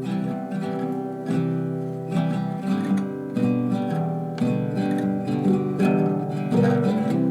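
Film score music: acoustic guitar plucked and strummed in a steady, gentle rhythm.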